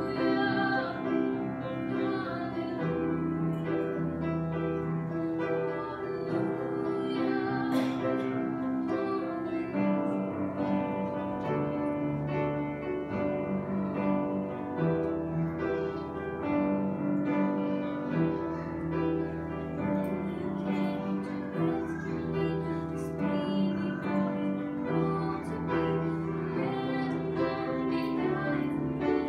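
A young woman singing a Christmas hymn with keyboard accompaniment, sustained notes in a continuous melody.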